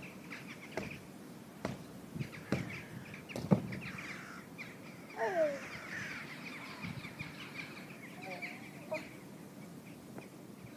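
Jumps on an in-ground trampoline: a few thumps, the loudest about three and a half seconds in when the jumper lands on his neck. Birds chirp and call throughout, with a short falling call about five seconds in.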